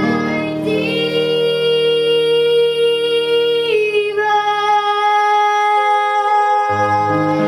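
A woman singing long held notes over a low instrumental accompaniment: one note held for about three seconds, then a move to another. The accompaniment drops out for a moment about five seconds in and returns near the end.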